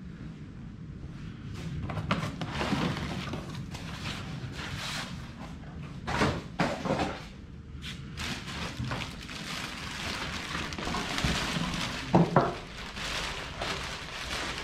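Packaging rustling and machine parts being handled out of a box, with scattered knocks and a few louder thuds about six to seven seconds in and again about twelve seconds in.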